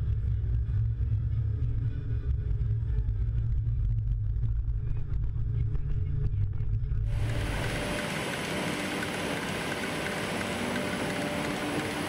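Engine of a Sennebogen 735 E timber handler running steadily as it drives, heard from inside its cab as a deep rumble. About seven seconds in the sound switches abruptly to a brighter, hissier machine noise heard from outside the handler.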